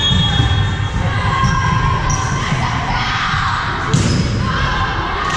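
Indoor volleyball play echoing in a gymnasium, with a sharp smack of the ball being hit about four seconds in, over a background of players' calls and spectators' voices.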